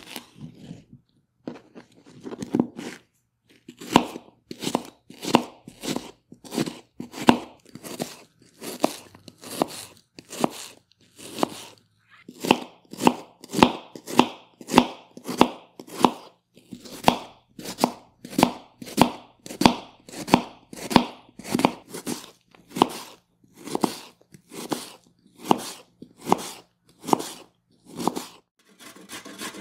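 Kitchen knife finely chopping an onion on a cutting board, in a steady run of crisp strokes at about two a second. Each stroke cuts through the onion and knocks on the board.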